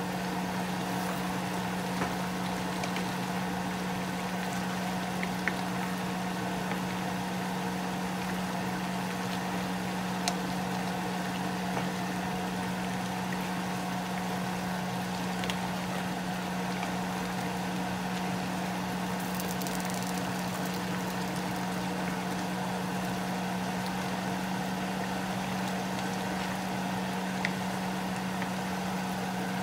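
A steady low hum, like a kitchen motor running, over the simmering of a chicken and pineapple stew in a pan, with a few light knocks of a wooden spoon against the pan as it is stirred.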